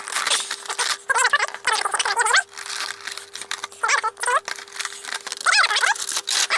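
Clear plastic blister packaging and cardboard insert of an action-figure box crinkling and crackling as they are pulled out and handled, with several short squeaks of plastic rubbing on plastic as the figure is worked out of its tray.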